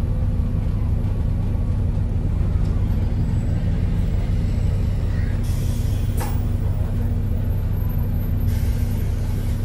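Inside a New Routemaster diesel-electric hybrid bus: the steady low rumble of the bus running. Two short hisses of air, typical of the air brakes, come about halfway through and again near the end, with a sharp click just after the first.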